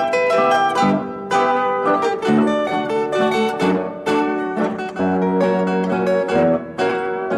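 Background music of quick plucked-string notes, a light harp- or zither-like melody.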